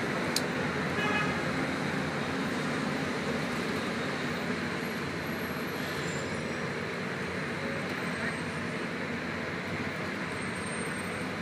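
Steady noise of slow, congested city-street traffic: car engines running and tyres rolling, with one sharp click shortly after the start.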